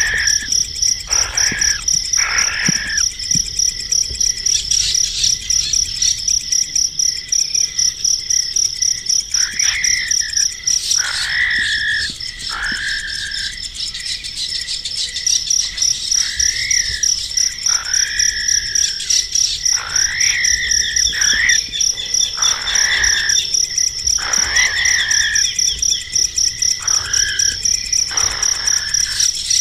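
An insect, cricket-like, trills steadily in rapid high pulses, while a bird gives short arched calls every second or two, with a gap in the calls around the middle.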